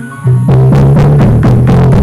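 Brazilian mega funk played very loud through a Volkswagen Saveiro's car sound system, with a heavy bass line and pounding drum beat. The beat kicks in at full loudness just after the start.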